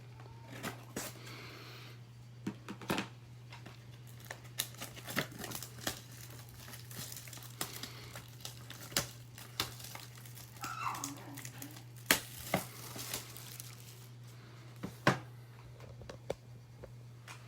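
Wrapping and packaging on a box of 2013 Bowman Inception baseball cards crinkling and tearing as it is opened, with irregular crackles and snaps throughout. A steady low hum runs underneath.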